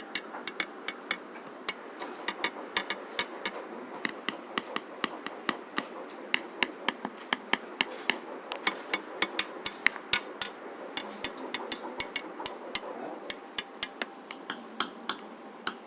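Rapid, irregular light tapping strikes, several a second, over a steady background noise.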